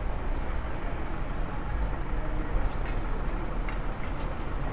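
Steady outdoor city-centre ambience dominated by a low rumble, with a few faint ticks about three seconds in.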